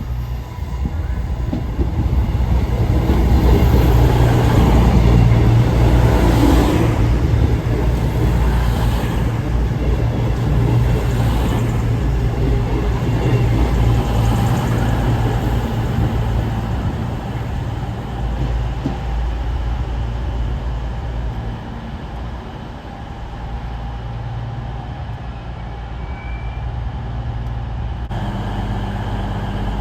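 Train moving through a railway station, its rumble swelling to its loudest about five seconds in and then slowly fading, over a steady low hum.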